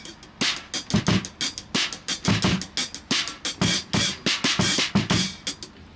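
A drum kit being played: a quick, busy beat of sharp drum strokes, several a second, with deeper drum hits mixed in among snare hits.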